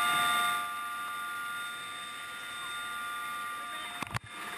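Steady whine of a rescue helicopter heard from inside its cabin, several fixed tones held level. It cuts out briefly with a click about four seconds in.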